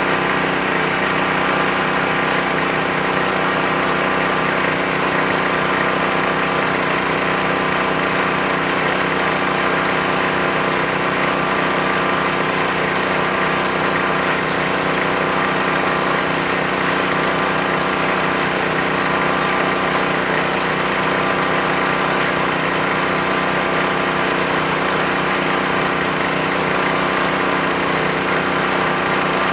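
Small engine of a bore-well drilling machine running steadily at an even speed.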